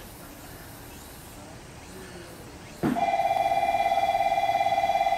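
Station train-approach warning bell ringing: a steady, high electric trill that starts suddenly about three seconds in and keeps ringing, signalling that a train is about to arrive. Before it, only a faint steady outdoor background.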